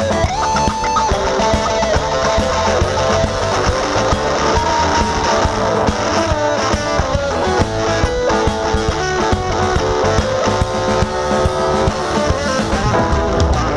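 Live blues band playing an instrumental passage: electric guitar to the fore, with bass guitar, keyboard and drums underneath.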